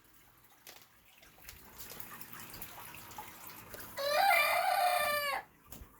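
A hen crowing like a rooster: one loud crow lasting about a second and a half, starting about four seconds in.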